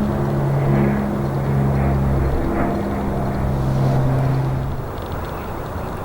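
Jet engines of a Boeing 737-800 airliner (CFM56 turbofans) running, a steady low drone with a rushing noise beneath. About five seconds in the drone cuts off, leaving a softer, even rushing noise.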